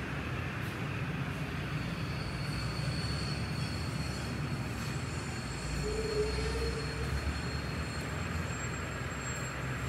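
Model trains running on the track: a steady running noise with a thin high-pitched squeal held from about a second and a half in until near the end.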